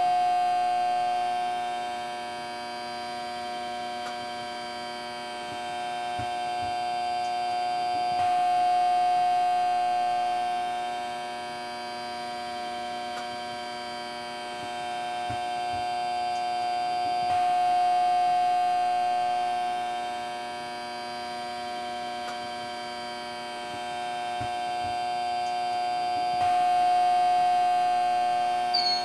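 Eerie electronic drone of many held tones, swelling and fading about every nine seconds, with a few faint low thuds in each swell.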